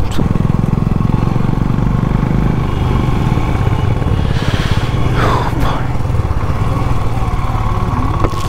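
Royal Enfield Classic 350's single-cylinder engine running steadily under way, with an even pulsing note. About five seconds in, a brief louder noise sweeps down in pitch over it.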